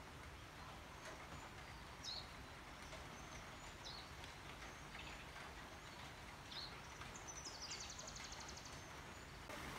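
Rain falling as a faint steady hiss, with birds calling over it: a few short chirps about 2, 4 and 6.5 seconds in, and a fast high trill lasting about a second near the end.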